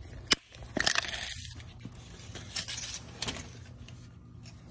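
Metal tape measure being handled: a sharp click, then a few short rattles and scrapes as the blade is pulled out and set against the floor, over a low steady hum.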